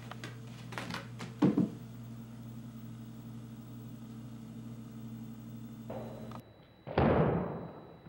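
A kitten's thumps and light clicks as she jumps from a carpeted cat tree and plays on a hard tile floor, over a steady low hum. A sharp thump comes about one and a half seconds in; the hum stops abruptly, and a louder rushing thump that fades over about a second follows near the end.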